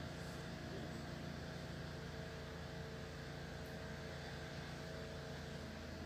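A steady low hum under faint background noise, with no distinct event standing out.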